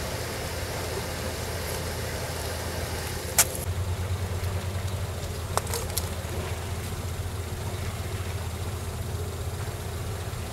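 A low engine idling steadily with an even pulsing rumble. A sharp click sounds about three and a half seconds in, and two fainter clicks come near six seconds.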